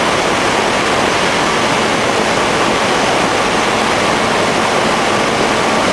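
Steady cockpit noise of a Cessna light aircraft in flight: engine and airflow heard together as an even, loud rush with no breaks.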